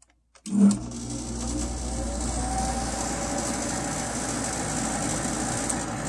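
Sharp Comfort Touch window air conditioner being switched on: a button click, a loud thump about half a second in as it kicks on, then the steady whoosh and low hum of the unit running, with a faint tone rising as the fan comes up to speed. The fan motor runs slower than it should because the circuit voltage is low, about 104 volts instead of 120.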